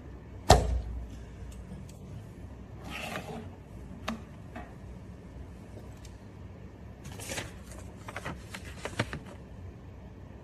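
Handling noises while a freshly laminated phone screen is taken out and inspected: a sharp thump about half a second in, then scattered light clicks and brief rustling.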